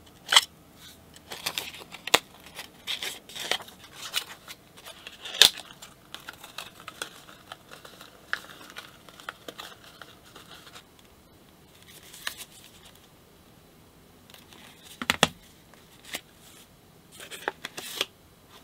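Scissors snipping and paper handling as a printed paper playing-card tuck-case template is cut and folded around a deck: sharp snips and clicks over light crinkling and rustling. A quieter stretch comes in the middle, and a few more sharp clicks come near the end.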